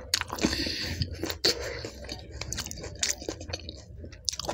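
Close-miked chewing and crunching of pani puri, crisp puffed shells filled with spiced water, eaten with raw green chillies: a run of short sharp crunches mixed with wet chewing.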